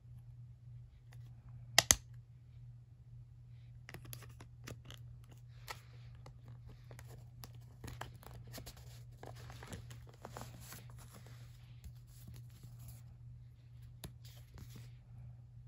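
Hands handling a plastic CD jewel case and its paper booklet: two sharp clicks about two seconds in, then a long run of small clicks, scratches and paper rustling as the booklet is taken out and leafed through, over a steady low hum.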